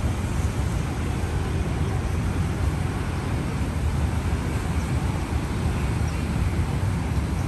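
City street ambience: a steady low rumble of road traffic, with no single sound standing out.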